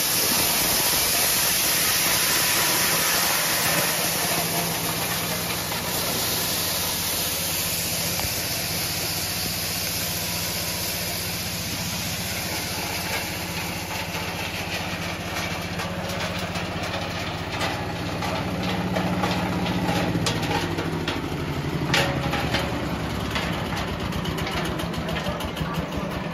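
Engine-driven corn thresher running: a steady engine drone under a hiss of shelled kernels spraying out. From about halfway a clatter of clicks and knocks builds, with one sharper knock about two-thirds through.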